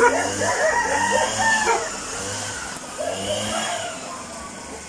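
Rooster crowing: one long crow of about two seconds, then a fainter second crow about three seconds in.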